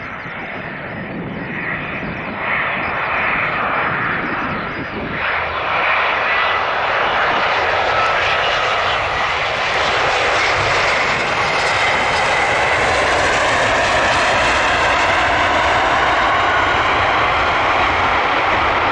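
Airbus A320neo's two CFM LEAP-1A26 turbofan engines, a dense jet roar that grows louder over the first several seconds and then holds steady and loud.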